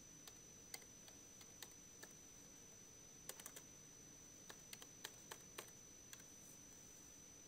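Faint keystrokes on a computer keyboard, typed in a few short runs, with a quick flurry a little past three seconds in and another run about a second later.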